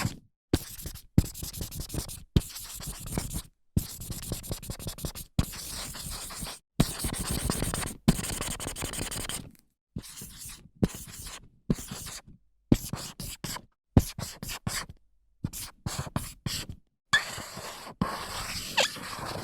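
Dry-erase marker writing on a whiteboard: a series of short scratchy strokes and longer rubbing passes, cut apart by brief silences. A squeak comes near the end.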